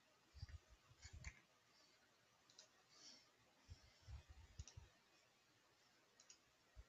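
Near silence with faint, scattered computer mouse clicks and soft low bumps of things being shifted on a desk, in two short clusters about a second in and again around four seconds in.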